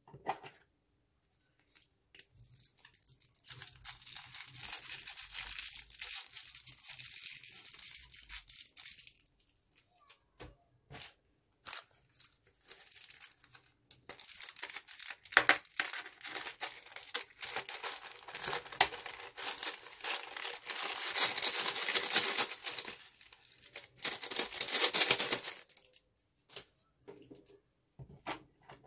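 Plastic piping bags crinkling as small foam beads are squeezed out of them into a glass dish: a dry, hissing crackle in two long stretches, the second longer, with a few sharp clicks in between.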